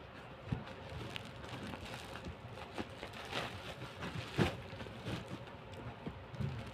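A package being opened by hand: continuous crinkling and rustling of wrapping, with many small irregular ticks and a couple of sharper knocks.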